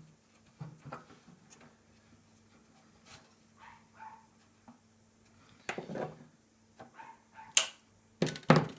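Light clicks and knocks of printed nylon airframe parts being handled and fitted, with a few sharper clicks near the end.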